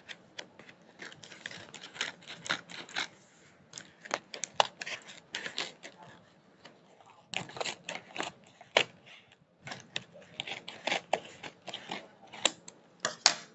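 Plastic and paper packaging crinkling and rustling in irregular crackly bursts as it is handled and opened, with a brief lull about halfway through.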